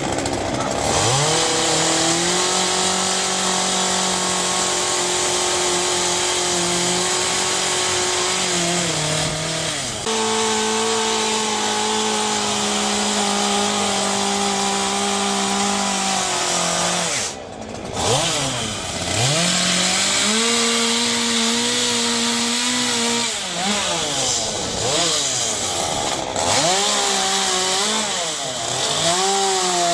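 Chainsaw cutting, held at high revs for several seconds at a time and dropping back in between, then revved up and down in quick short bursts near the end.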